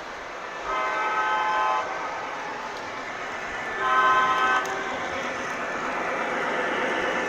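O gauge model train running on its track with a steady rolling noise, its onboard sound system sounding two horn blasts, the second shorter and louder than the first.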